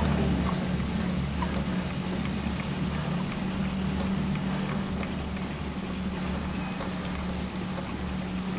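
Aerial tramway carriage running steadily along its track ropes: a continuous low rumble with a constant hum and a few faint clicks.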